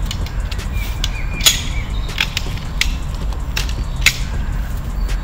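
Sharp clicks and knocks of a lightweight folding camp cot's aluminium frame parts being handled and fitted together during assembly. The loudest come about a second and a half in and just after four seconds, over a steady low rumble.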